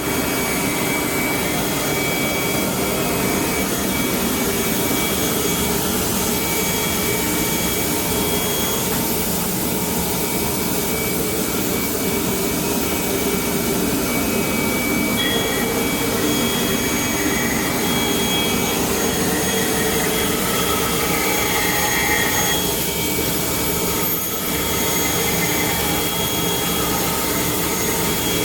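MJS1212 CNC curve saw running: a steady machine noise with thin whining tones on top.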